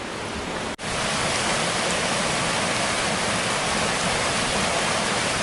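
Steady hiss of warm spring water cascading down a small waterfall in the canyon, broken by a brief dropout just under a second in.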